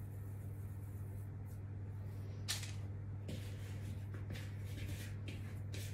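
Hands rolling crumbly shortbread dough into balls between the palms and picking more from a bowl: brief soft rustles and scrapes, the sharpest about two and a half seconds in, over a steady low hum.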